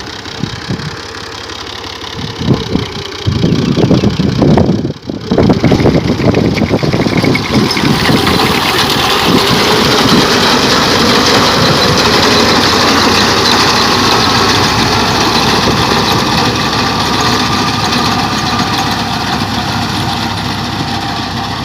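Engine of wheat-harvesting machinery running, with loud uneven clattering knocks in the first few seconds, then a steady, louder machine noise from about eight seconds in.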